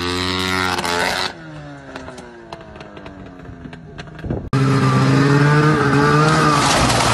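Snowmobile engine revving, then a quieter stretch in which an engine winds down with a few clicks. About four and a half seconds in, another snowmobile engine comes in loud and runs steadily, revving up slightly near the end.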